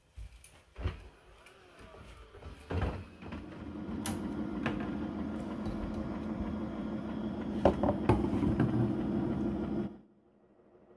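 A few knocks and clicks, then the Narwal T10 docking station washing the robot's mopping pads: a steady mechanical whir with scattered clicks, starting about three seconds in and cutting off suddenly near the end.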